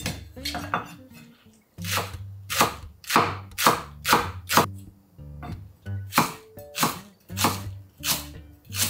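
Chef's knife slicing a green onion on an end-grain wooden cutting board: crisp chops about twice a second, starting about two seconds in. Background music plays underneath.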